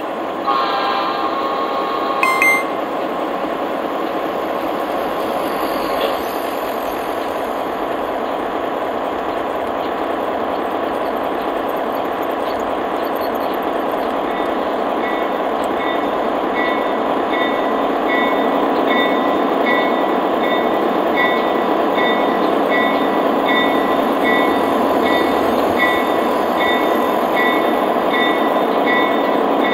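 American Flyer S-gauge Missouri Pacific passenger train running on the layout track: the steady hum and rumble of the Alco PA-1's motor and the metal wheels of the coaches, with a short pitched tone near the start. From about halfway a quick, evenly repeating high ding sounds over the running noise.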